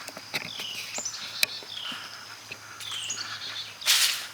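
A songbird repeats a short falling chirp about once a second over a steady high insect drone, with light clicks throughout. Just before the end comes a brief loud rush of noise.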